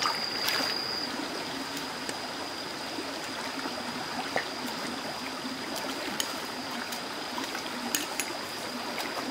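Shallow rocky stream flowing and trickling steadily, with a few light splashes and knocks as hands work among the stones in the water.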